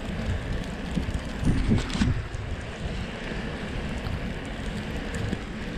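Steady wind rush on the microphone over the low rumble of a Surly Krampus's 3-inch tyres rolling through snow, with a short rattle about two seconds in.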